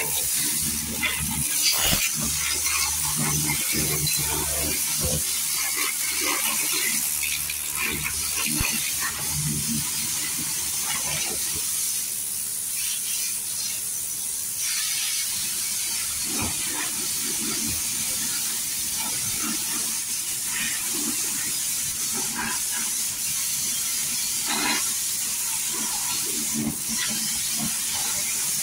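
Steady hiss of a high-pressure water jet spraying a scooter during washing. A low machine hum, likely the washer's pump motor, runs underneath for the first nine seconds or so.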